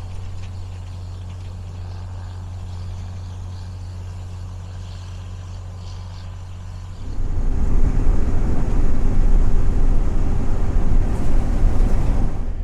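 Vehicle driving across a field: a steady low engine drone, then about seven seconds in a sudden, louder rough rumble that lasts to the end.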